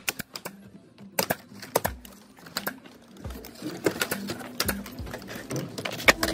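Irregular sharp clicks and knocks of vinyl siding being installed: a pneumatic nail gun firing into the siding and the plastic panels knocking as they are handled and fitted.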